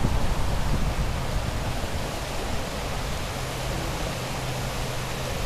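Steady rushing of fast-moving floodwater, an even hiss with no breaks. A low wind rumble on the microphone dies away in the first second.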